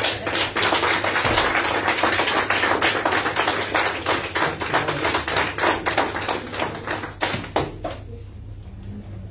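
Small audience applauding, dense hand claps that thin out and stop about eight seconds in.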